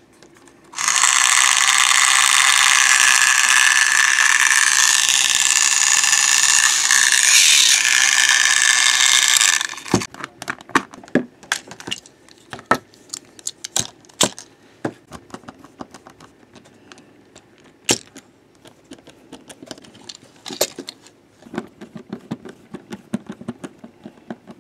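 A Stafford Trackmaster battery toy train's electric motor and plastic gearbox running with a loud, steady, high-pitched grinding whirr for about nine seconds, then cutting off abruptly. The noise is the fault being repaired. After it come scattered plastic clicks and knocks as the train is handled and taken apart, with a small screwdriver working on the motor housing near the end.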